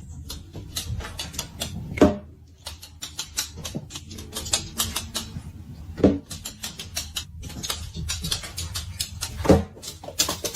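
Rapid, irregular clicking and tapping, with three louder thumps spread through it.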